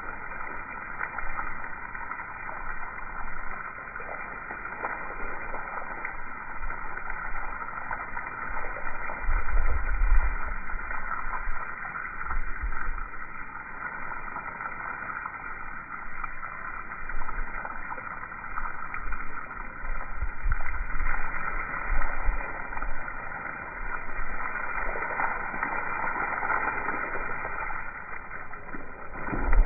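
Water spray from a garden hose pattering and rushing onto pea gravel and flagstones, heard slowed down, so it comes through as a low, muffled rushing hiss with a few low rumbles, the strongest about a third of the way in.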